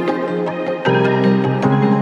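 Instrumental background music: gentle sustained notes with a change of chord a little under a second in.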